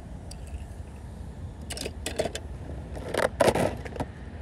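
Handling noise of small die-cast toy cars over a steady low rumble: a few light clicks about halfway through, then a louder scrape and clatter as the toys are set down on a rough concrete ledge.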